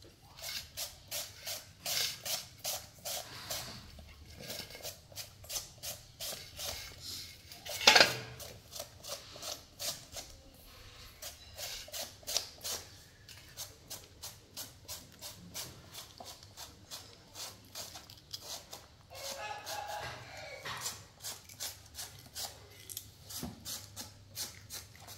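A hand-held shredder scraping strips off a peeled vegetable into a plastic bowl, in quick even strokes about three a second, with one much louder knock about eight seconds in.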